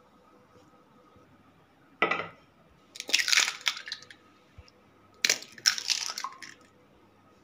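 Eggs cracked by hand into a stainless steel bowl, twice: each time a sharp crack of shell, then about a second of crackling as the shell is pulled apart.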